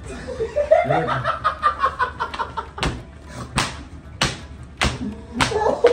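Men laughing and exclaiming, then five sharp smacks at an even pace, about two-thirds of a second apart.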